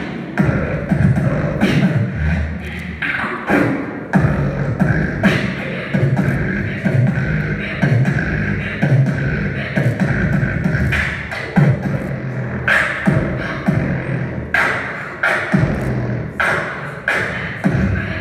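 Live beatboxing: sharp vocal kick and snare hits in a driving rhythm over a low hummed bass line that steps between notes.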